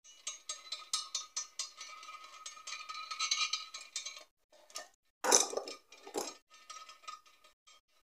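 Socket ratchet cranking the nut on the threaded rod of a home-made cylinder-liner puller: rapid ratchet clicking over a thin steady squeal, two heavy metallic clunks about five and six seconds in, then lighter, sparser clicking.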